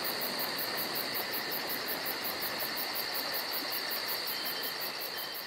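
Steady chorus of chirping crickets: a high trill pulsing about five times a second over an even hiss.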